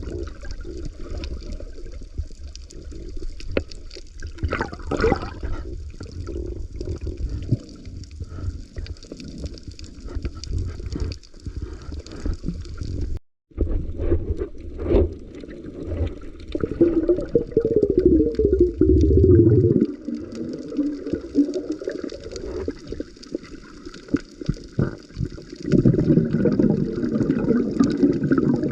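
Water heard underwater: a muffled, churning gurgle with scattered sharp clicks, louder a little past the middle and again near the end. It cuts out completely for a moment about thirteen seconds in.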